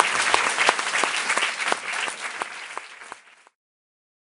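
Audience applauding, the claps thinning out and fading, then cutting off suddenly about three and a half seconds in.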